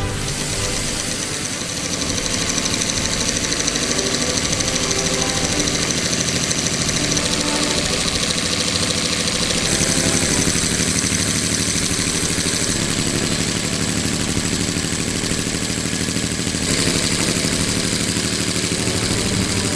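Hand-built miniature V12 engine of 12 cc running on compressed air: a fast, even chatter of air exhausting from the cylinders over the clicking of its tiny valvetrain. The tone shifts slightly about ten seconds in and again near the end.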